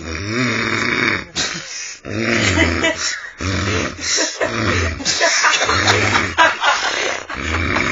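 Loud, rough snoring that comes in short, rhythmic snorts about once a second.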